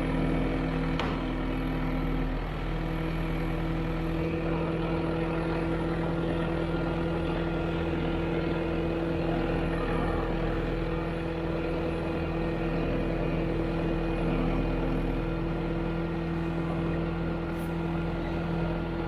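An engine running steadily at an unchanging speed, an even low hum.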